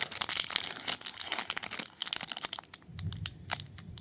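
Trading cards and a foil pack wrapper being handled: dense crinkling and crackling for about two seconds, then scattered clicks and rustles as cards are flipped through.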